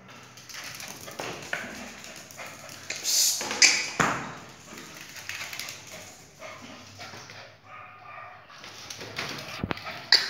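Small dog barking and yipping in short yaps, loudest about three to four seconds in and again near the end.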